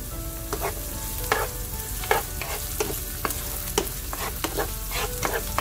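Diced onions and green chilies sizzling in hot oil in a pan while being browned. A utensil stirs them, scraping and tapping against the pan about three times a second.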